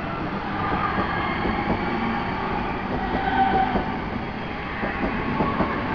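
London Midland Class 323 electric multiple unit running past close by: a steady rumble of wheels on rail, with light clicks as the wheels cross rail joints.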